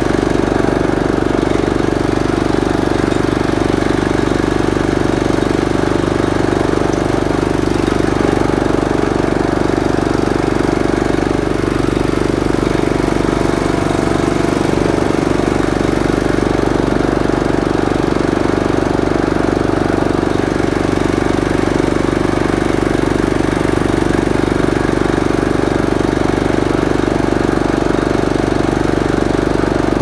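Riding lawn mower's small single engine running steadily while the mower is driven, with no cutting deck fitted.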